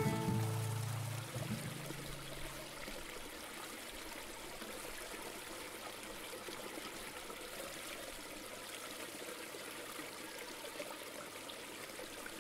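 Background music fades out over the first couple of seconds, leaving a steady, soft wash of running water like a trickling stream.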